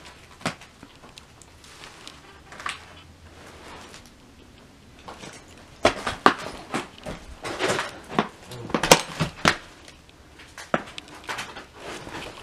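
Footsteps crunching and clattering over broken tiles, plaster chips and loose boards on a rotting wooden floor. Scattered knocks come throughout, with a dense run of loud clatters in the middle.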